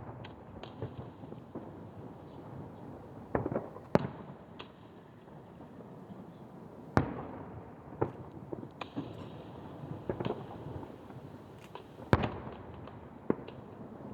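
Aerial firework shells bursting in a display: sharp bangs at irregular intervals, the loudest about four, seven and twelve seconds in, with lighter pops and crackles between them.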